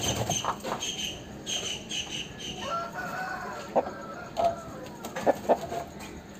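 Rooster crowing, one drawn-out call about three seconds in, followed by a few short, sharp clucks.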